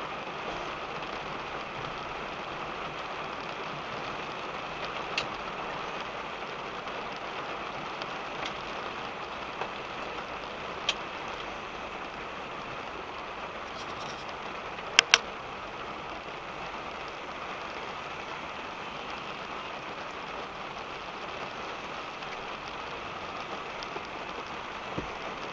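Rain on a car heard from inside the cabin: a steady, even hiss, with a few sharp clicks, including a quick pair about halfway through.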